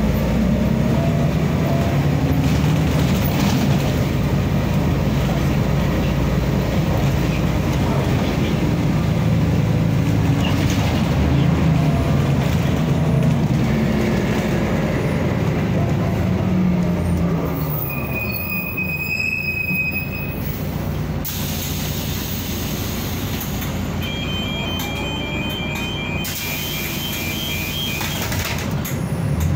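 Inside a Mercedes-Benz O405N2 city bus: its OM447hLA diesel engine and ZF 4HP 500 automatic gearbox drone under way, rising and falling in pitch as the bus pulls and shifts. It eases to a quieter run about two-thirds through. A single high electronic tone sounds briefly, and later a run of repeated beeps.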